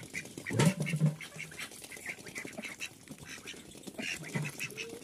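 Ducks quacking around a feed bowl, with a loud low call just before a second in and a shorter one past four seconds, over a busy patter of small clicks from bills pecking and dabbling at the grain and water.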